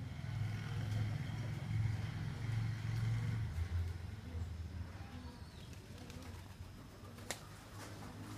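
Low rumble, louder in the first few seconds, with faint bird calls over it and a single sharp click near the end.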